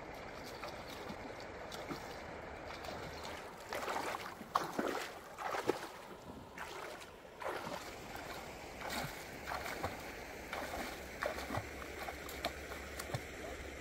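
A person wading through a shallow river, legs splashing through the water in irregular strokes over the steady rush of the flowing stream. The splashing starts about four seconds in.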